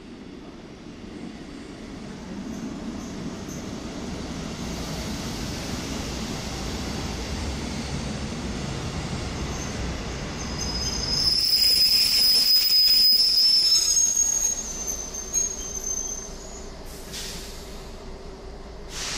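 A passenger railcar pulls into the platform: its rumble builds as it rolls in alongside, then a loud, high-pitched squeal of brakes and wheels for about three seconds as it comes to a stop. A quieter steady hum is left as it stands.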